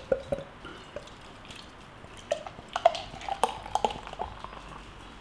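Lager glugging out of a glass bottle into a tilted pint glass. A few glugs come at the start, then a quieter stretch, then a run of louder glugs about two to four seconds in.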